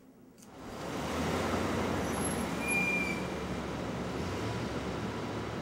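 City street traffic: passing vehicles with a steady low engine hum, fading up about half a second in.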